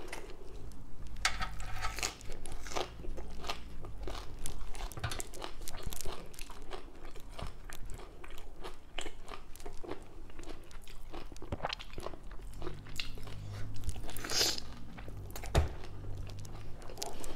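A person chewing and crunching papaya salad and raw vegetables close to the microphone, with irregular crunches and one louder crunch near the end.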